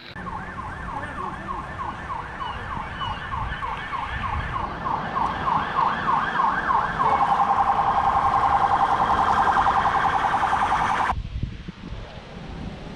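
Emergency vehicle siren in yelp mode, rising sweeps about three times a second. About seven seconds in it switches to a faster, louder pulsing, and about eleven seconds in it cuts off abruptly.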